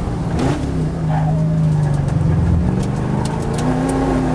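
Holden VH Commodore SS V8 engine heard from inside the cabin while the car brakes hard from about 97 to under 40 km/h for a bend. The engine note blips up briefly, holds steady, drops as the gears come down, then steps up to a higher steady note near the end as the car drives through the corner.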